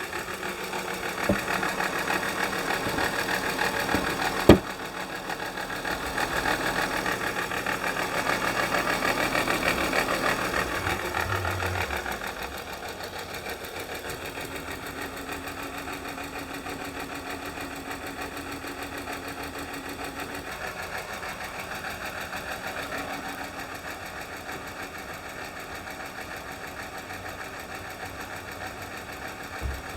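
2015 Jeep Wrangler's 3.6-litre Pentastar V6 running with a rapid ticking, the lifter tick the owner warns of. It is louder for about the first twelve seconds, then settles to a steadier, quieter run, with a single sharp knock about four and a half seconds in.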